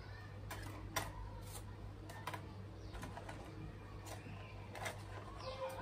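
Light irregular clicks and knocks of small plastic drone parts and packaging being handled, over a steady low hum.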